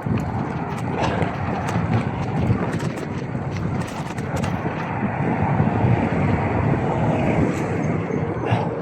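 Wind buffeting a camera microphone on a moving bicycle, a dense steady rumble with scattered sharp clicks.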